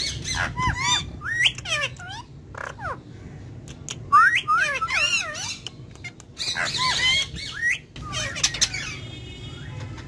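Indian ringneck parakeets squawking and chattering in several short bouts of sliding, high-pitched calls.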